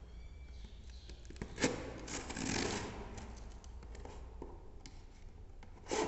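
Knife blade slitting the packing tape along the seam of a cardboard parcel box: a sharp click about a second and a half in, then scraping and scratching of blade on tape and cardboard, loudest for about a second after the click.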